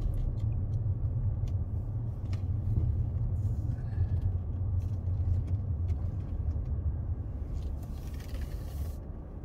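Steady low drone of a car's engine and tyres heard from inside the cabin as it rolls slowly through a parking lot. A few faint clicks are heard, and a brief hiss comes near the end.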